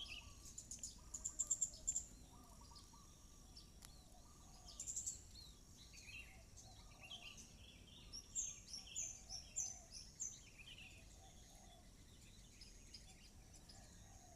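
Several wild birds chirping and calling: a quick cluster of high chirps in the first two seconds, more near five seconds, and a run of descending high notes around eight to ten seconds, over a faint steady background hiss.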